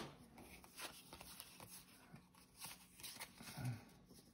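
Faint rustling and light taps of Pokémon trading cards being handled and shuffled through by hand.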